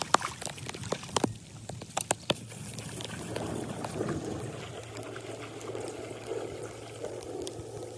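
Shallow floodwater sloshing and splashing, rising in uneven surges from about three seconds in, as it is waded through and a wheeled bin is pushed through it. A few sharp clicks come in the first two seconds, and a low steady hum runs underneath.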